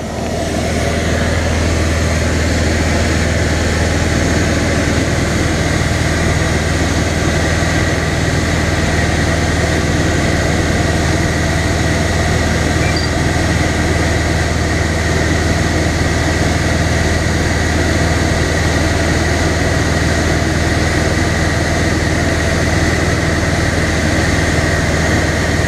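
Single-engine light aircraft's piston engine and propeller running steadily in flight, heard inside the cockpit: a constant low hum with a faint high whine above it.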